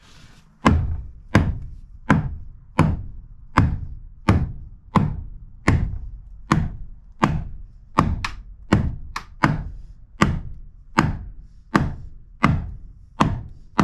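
Steady, repeated hammer blows on wood, about one and a half a second and a little quicker in the middle, starting just under a second in. A tight-fitting board is being driven down into a narrow gap in the floor framing.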